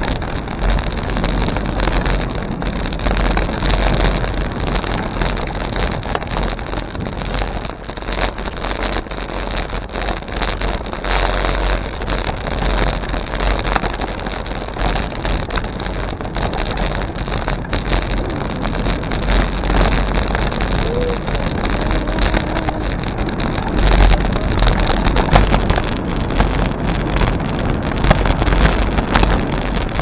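Wind buffeting the microphone while cycling: a steady, loud rumble without a break, swelling a little in places.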